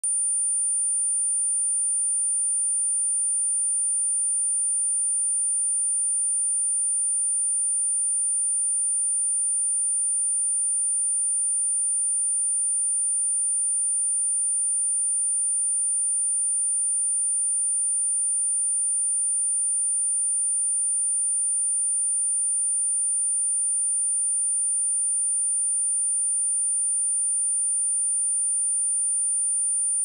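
Pure sine-wave speaker test tone at 9245 Hz: a single high-pitched whistle held perfectly steady, without any change in pitch or loudness.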